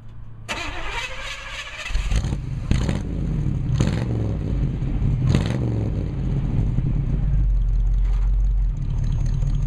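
An engine starts about two seconds in and then runs steadily, with several sharp knocks or bangs in its first few seconds.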